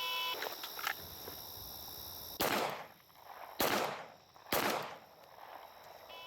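An electronic shot timer beeps to start, then a handgun fires three shots about a second apart, and the timer beeps again at the end of the six-second par time.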